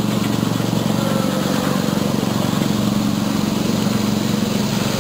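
Ride-on miniature railway train running along its track: a small engine drones steadily with a fast, even pulse.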